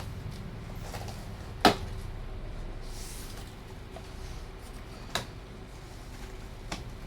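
Three sharp knocks from handling a television and its packaging during unboxing: one about a second and a half in, the loudest, then two lighter ones near the middle and near the end.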